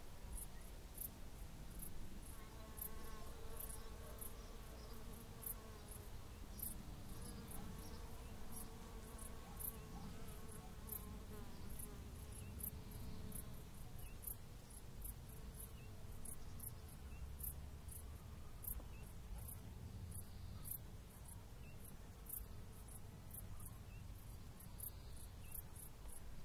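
A cricket chirping in short, very high, evenly spaced chirps, about two a second, over a low rumble of wind.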